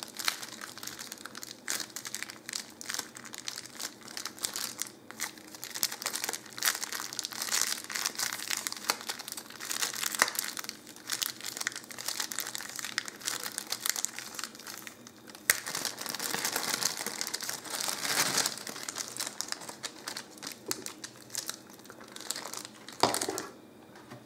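Thin clear plastic bag crinkling and crackling as fingers work at it and pull at a yellow tape strip on it. The crinkling comes in uneven bursts, with a loud crackle about a second before it stops near the end.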